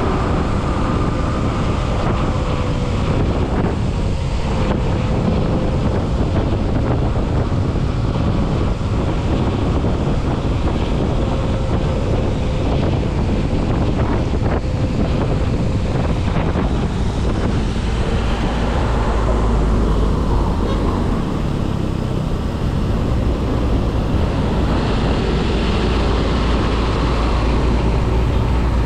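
Wind buffeting the microphone of a chest-mounted GoPro on a mountain bike descending a wet road, a steady loud rush with heavy low rumble, mixed with tyre and road noise from the wet surface.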